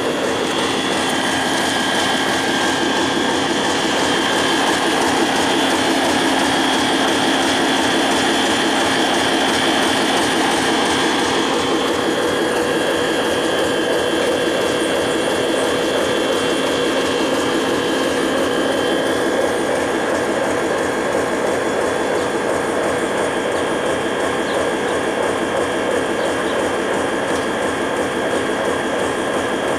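Diesel locomotive engine running close by: a steady mechanical drone with a fast, fine rattle and a few steady high whines over it.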